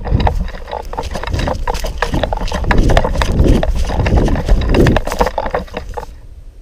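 Running footsteps crashing through undergrowth, with gear rattling and knocking against a body-worn camera, an uneven run of thuds for about six seconds that then falls away.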